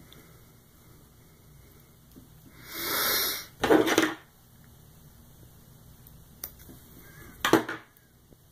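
Close-up handling noises of fly tying at the vise, as hands and a metal bobbin work fox hair and thread: a soft rush about three seconds in, then a loud scratchy clatter, a small click and another sharp scratchy burst near the end, over a low steady hum.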